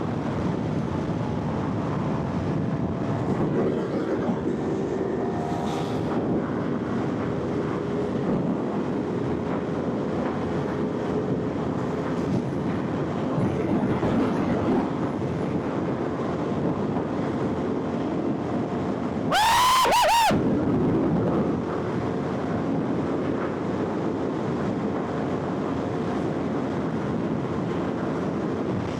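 Motorcycle engine running under way, with riding wind noise. About two-thirds of the way through, one short, loud rev whose pitch rises and falls over about a second.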